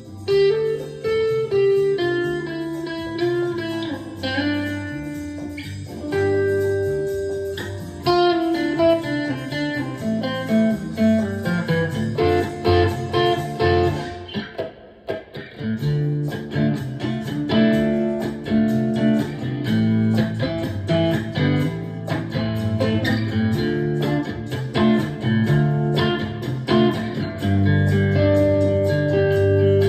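Taylor T5 hybrid electric-acoustic guitar played through an Atomic AmpliFIRE amp-modelling pedal in a blues-rock style: sustained single-note melody lines for the first half, a brief dip about halfway, then fuller chordal playing.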